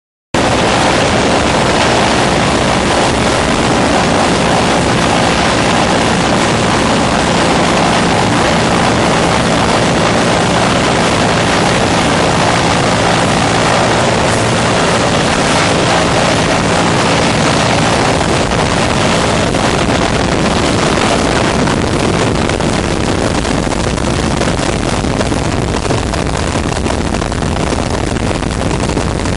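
Helicopter engine and rotor noise, loud and steady, cutting in suddenly just after the start. A low hum beneath it fades out about eighteen seconds in.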